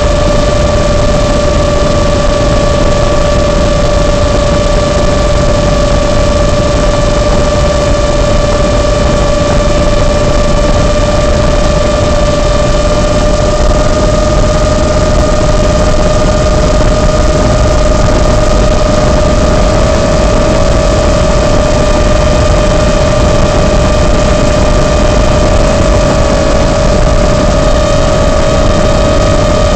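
A micro long-range FPV quadcopter's motors give a steady, unchanging whine as it holds climbing throttle. Loud, even hiss from the analog FPV recording lies under the whine.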